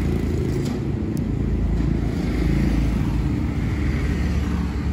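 A vehicle engine idling steadily, a low even rumble.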